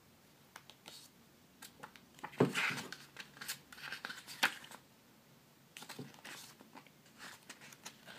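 Pages of an album's photo book being flipped and handled: paper rustling with small clicks, in a busy stretch from about two seconds in and again briefly near six seconds.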